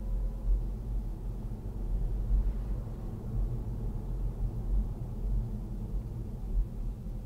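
Road and engine noise inside a moving car's cabin: a steady low rumble with a faint whine above it.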